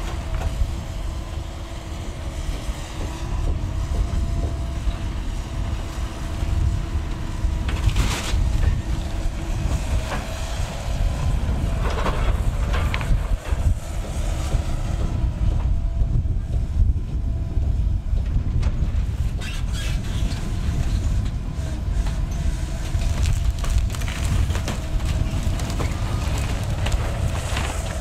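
Link-Belt tracked hydraulic excavator working demolition: a steady diesel rumble with a hydraulic whine, broken now and then by cracks and crashes of splintering wood and falling debris, the sharpest about eight and twelve seconds in.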